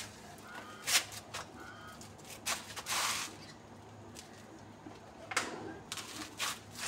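Scattered scuffs, knocks and a brief rustle as pieces of plantain stem and banana are handled, with a bird calling faintly in the background.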